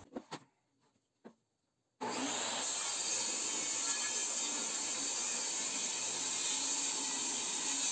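A few light knocks, then about two seconds in a power tool starts abruptly on wood and runs with a steady, even noise.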